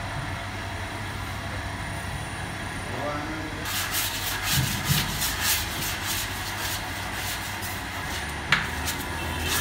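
Large bakery dough mixer running with a steady low hum, its arm churning a heavy dough in a steel bowl. From about four seconds in, rough rubbing and scraping noises join as the dough is worked, with one sharp knock near the end.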